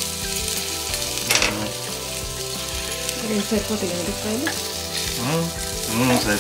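Prickly pear cactus pads frying in hot oil in a pan, with a steady sizzle and one brief louder noise about a second and a half in.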